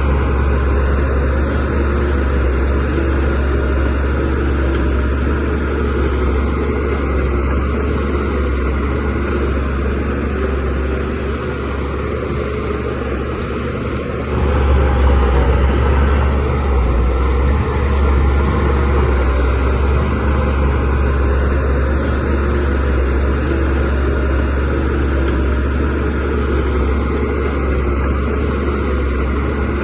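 Shantui DH17C3Pro bulldozer's diesel engine running steadily under work, with a deep low hum. It eases a little and then grows louder about halfway through.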